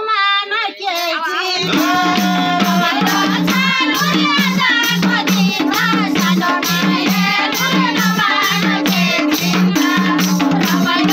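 Group of women singing a Nepali rateuli folk song; about two seconds in, a steady beat of hand claps and percussion with a low repeating instrumental line comes in under the voices.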